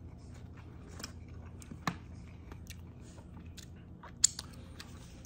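Chewing food: soft mouth clicks and smacks, with a sharper click about two seconds in and another near the end.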